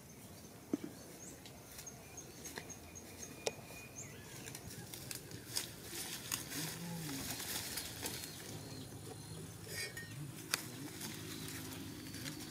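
Grass and leafy undergrowth rustling, with scattered snaps and crackles, as someone pushes into the vegetation and searches through it by hand. An insect chirps faintly in a regular pulse for the first few seconds.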